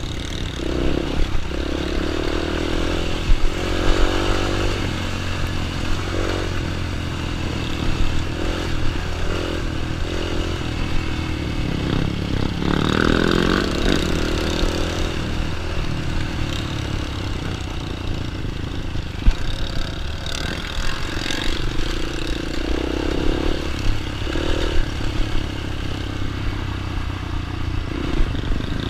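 Small dirt bike engine running, with some clatter.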